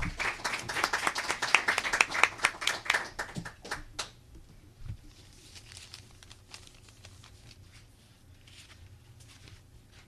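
Small audience applauding: dense clapping for about four seconds that thins to scattered claps and dies away.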